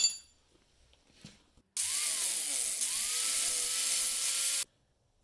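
A sharp click, then about three seconds of steady, loud welding-arc hiss that starts and stops abruptly. The arc is run with the heat turned up, welding onto the stripped nut that spins on the outer tie rod end stud.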